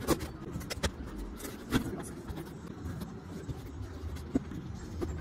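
Handling noise from a plastic toy tool box and its cardboard box: a few short knocks and clicks over a low steady rumble.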